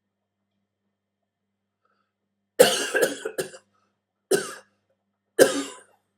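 A person coughing: a short run of coughs about two and a half seconds in, then two single coughs about a second apart.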